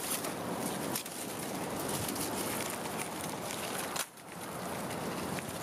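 Steady wind noise rushing over the microphone outdoors, dropping away briefly about four seconds in.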